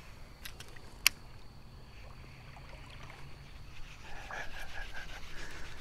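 Baitcasting reel giving a single sharp click about a second in as it is worked after a cast, then quiet creek-side ambience with a short run of high chirps near the end.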